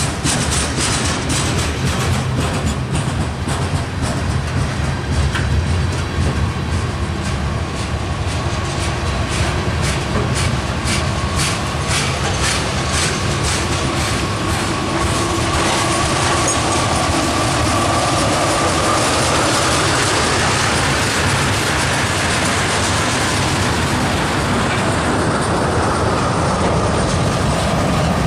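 Freight train of covered hopper and tank cars rolling past close by, its wheels clacking rhythmically over rail joints. A thin, steady wheel squeal comes in partway through, rises a little in pitch and fades toward the end.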